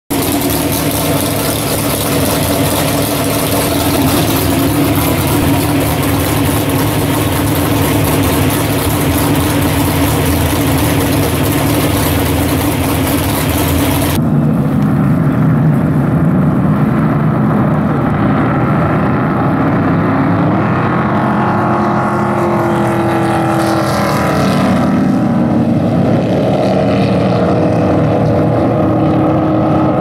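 Unblown flatbottom race boat's inboard V8 running loud through open individual exhaust pipes for about the first half. Then, after a sudden change, several flatbottom race boats race across the water, their engine pitch sliding up and down as they pass.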